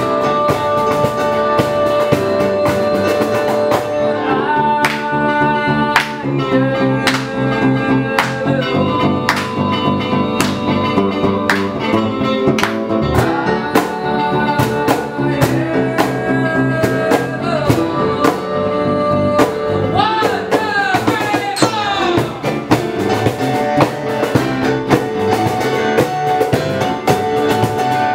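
Acoustic band music: strummed acoustic guitars over a steady percussive beat, with a singing voice. A gliding vocal run comes about two-thirds of the way through.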